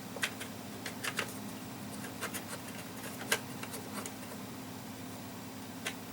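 Cotton swab with alcohol rubbing on a cassette deck's tape heads: scattered small scratches and clicks, over a steady low hum.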